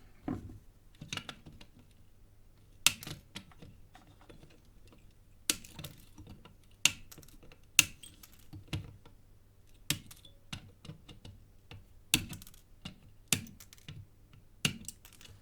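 Irregular sharp clicks and light taps, about one every second or two, of metal tools against a circuit board during hand soldering.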